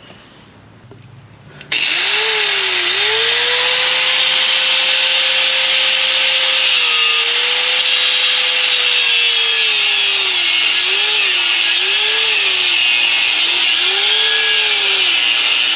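Angle grinder starting up about two seconds in and grinding steel on a rusted Jeep frame: a loud hissing grind over the motor's whine, whose pitch sags and recovers again and again as the disc is pressed into the metal.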